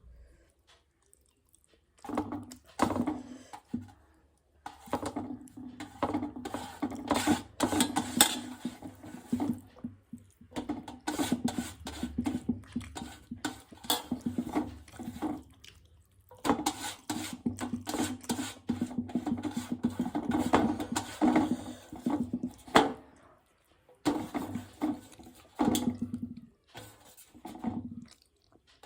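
Close-miked mukbang eating sounds: wet squelching and smacking of rice and curry being eaten, with sharp clicks, in irregular runs broken by short pauses.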